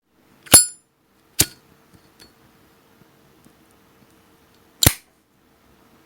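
Metallic clicks of a Zippo windproof lighter being handled: a sharp, ringing click about half a second in, another shortly after, a faint one, and a loud snap near the end, like the lid clicking open and snapping shut.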